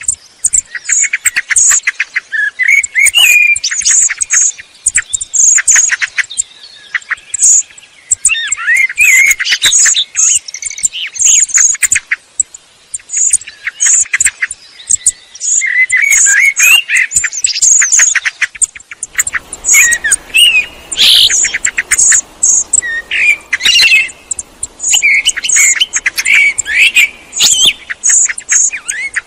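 Thrush song from a song thrush and a Eurasian blackbird: short phrases of fluting notes and rapid high twitters, with brief pauses between them. Partway through, a faint steady background hiss comes in.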